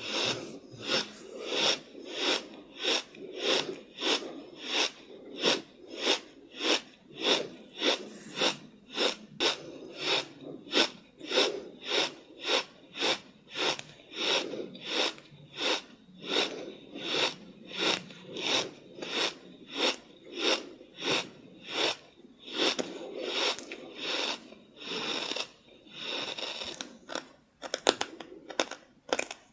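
Close-up chewing of crunchy food, a steady rhythm of about three chews every two seconds, with a brief break near the end.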